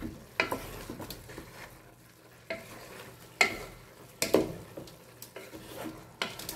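Wooden spoon stirring chicken pieces in an aluminium pot, knocking against the pot several times, over a faint sizzle of the chicken cooking in the juices it has released.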